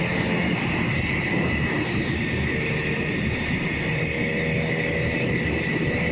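Steady on-board running noise of a moving road vehicle: a low engine hum under wind and road noise, holding an even speed.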